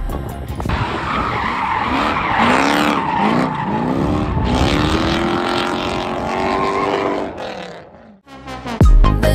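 V8-engined BMW E36 drifting: the engine revs rise in quick repeated sweeps and then hold high, over skidding tyres. It fades out near the end.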